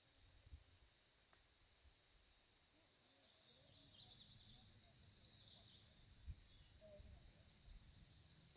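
Faint bird song: a songbird singing runs of rapid, high trilled notes, the longest run in the middle, over a steady faint high hiss.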